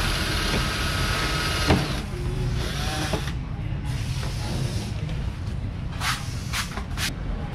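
Cordless drill running at a steady speed, stopping with a sharp knock a little under two seconds in. After that come a few sharp clicks near the end, over a steady low rumble.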